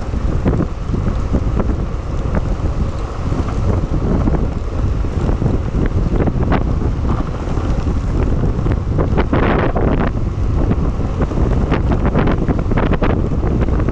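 Heavy wind buffeting a GoPro's microphone at downhill longboarding speed, over the rolling of skateboard wheels on asphalt, with scattered sharp ticks from the road surface. A brief hissing swell comes about nine and a half seconds in.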